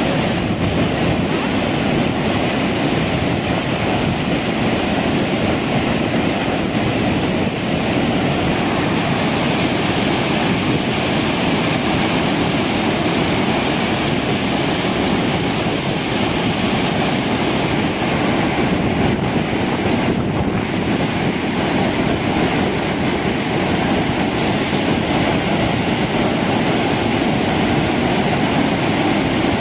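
Large volume of water rushing steadily out of a dam's open spillway gates.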